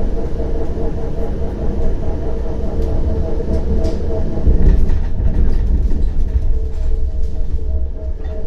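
CAF Urbos 100 tram running at speed between stops, heard from on board: a steady electric motor whine over a low rolling rumble from the wheels on the rails, with a few light clicks.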